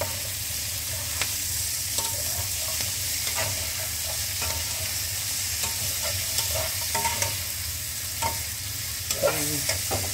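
Asparagus, tofu and red chillies sizzling with a steady hiss in a nonstick frying pan, with a spatula scraping and clicking against the pan now and then as the stir-fry is gently turned.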